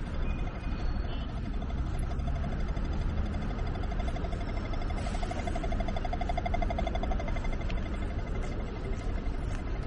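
Steady city street ambience: a continuous traffic rumble, with a faint, rapidly pulsing tone that swells and fades in the middle.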